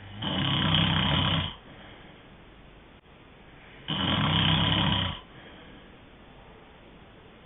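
A sleeper snoring: two loud snores, each a little over a second long with a low rattle, about four seconds apart.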